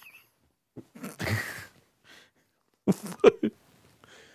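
A man giving short bursts of laughter and breathy vocal sounds, about a second in and again around three seconds in, with quiet gaps between.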